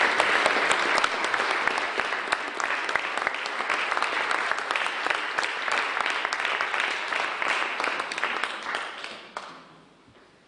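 Audience applauding, a dense patter of clapping that dies away over the last couple of seconds.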